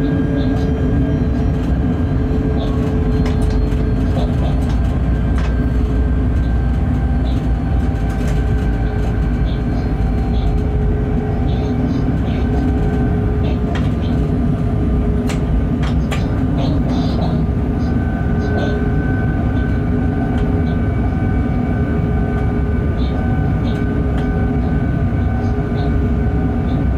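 Freight locomotive running at speed, heard from inside the cab: a steady low rumble of wheels on rail with several steady humming machinery tones over it, and scattered sharp clicks and rattles.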